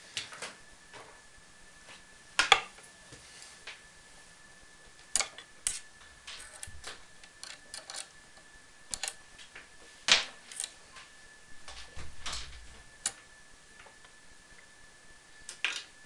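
Irregular clicks and knocks of patch-cable jacks being plugged into a modular synthesizer's sockets and its panel being handled, with a faint steady high tone underneath.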